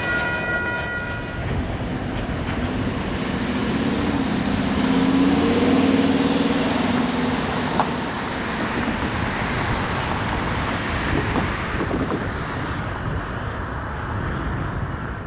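A diesel locomotive's multi-tone horn chord stops about a second in. The locomotive then passes, its engine drone swelling to a peak around the middle and easing off over a steady rushing noise.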